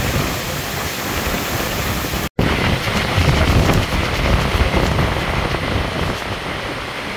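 Heavy rain pouring down in a strong wind storm, with gusts buffeting the microphone in a low rumble. The sound drops out completely for a moment about two seconds in, then comes back with stronger gusts.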